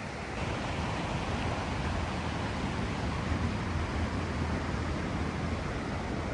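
Steady rushing outdoor noise with a low rumble underneath, getting a little louder about half a second in.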